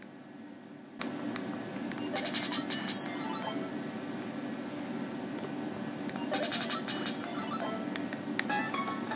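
LG KS360 mobile phone playing its built-in start-up and shut-down tunes through its small loudspeaker: a melodic electronic jingle that begins about a second in.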